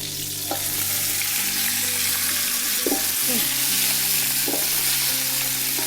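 Water spinach (kangkung) stir-frying in a pan: a steady sizzle with stirring.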